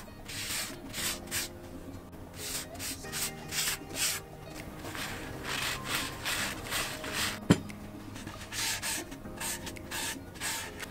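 Folded paper towel rubbed back and forth over a wooden chopping board, working oil into the wood: a run of swishing strokes, roughly two a second. A single sharp knock comes about seven and a half seconds in.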